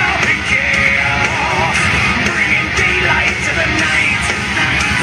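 Rock music with electric guitar and singing playing through a Boss MC400 motorcycle handlebar speaker system.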